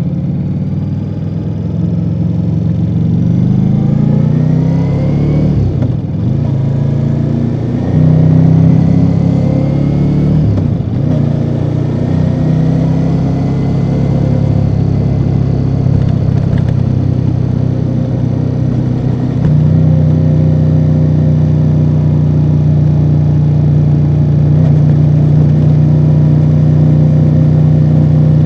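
Ducati Multistrada V4 Rally's V4 engine through its stock exhaust, under way: it revs up through two gears, with a short dip at each upshift about six and eleven seconds in, then holds a steady cruise, stepping louder about twenty seconds in.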